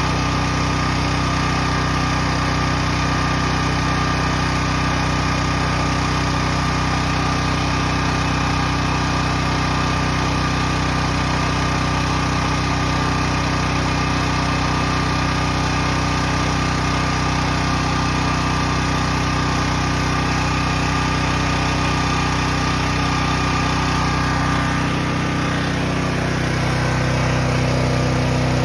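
Briggs & Stratton Storm Responder 6250 portable generator's single-cylinder engine, just converted to run on propane, natural gas or gasoline, running steadily. Its engine note shifts slightly near the end.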